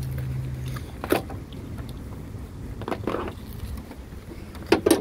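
Knocks and clunks from a pickup's hood being unlatched at the grille and lifted, with the loudest pair of knocks near the end. A low steady hum stops under a second in.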